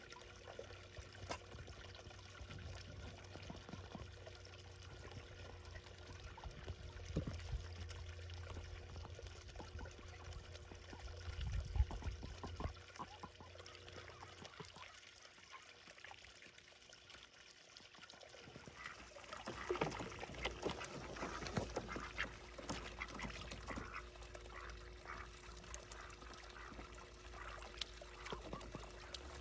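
Small pond fountain pump splashing and trickling steadily, with domestic ducks quacking and dabbling in the water; a busier patch of short splashes and calls comes about two-thirds of the way in.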